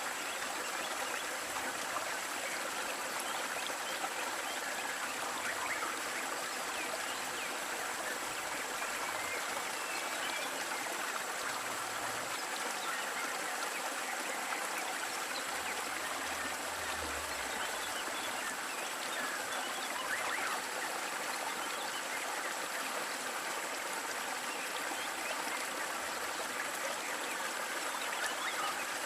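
Waterfall water rushing and splashing in a steady, even wash of sound with fine trickling detail.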